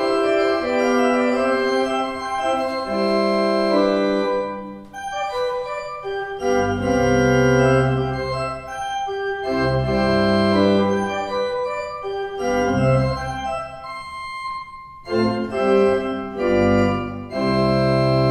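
1848 Nehrlich mechanical pipe organ playing the closing bars of a Baroque prelude: full held chords broken by short pauses, with deep pedal bass notes coming in about six seconds in. It ends on a long final chord.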